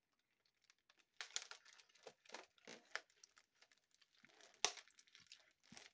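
Inflatable air-column plastic packaging crinkling and tearing as it is handled and cut open with a small knife: a faint run of short crackles starting about a second in, with one sharper click near the end.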